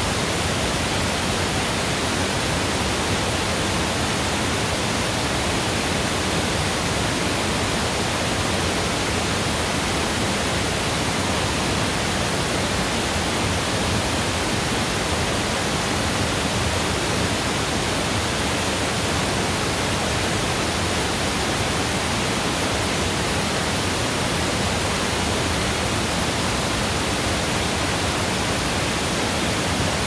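Mountain waterfall: a steady, unbroken rush of falling water.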